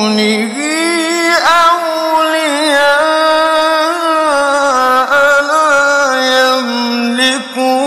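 A man reciting the Quran in the melodic mujawwad style, drawing out long vowels that wind up and down in pitch with quick wavering ornaments. There is a brief break for breath near the end.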